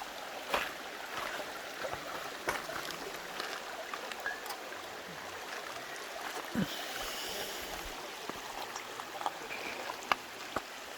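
Creek water flowing with a steady rush, with scattered small clicks and knocks over it.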